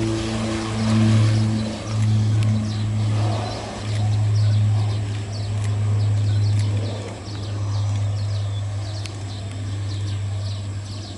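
Low, steady drone of an aircraft engine at the airport. Its higher tones fade out over the first couple of seconds while the low hum carries on, swelling and easing. From about three seconds in, many short, quick bird chirps sound over it.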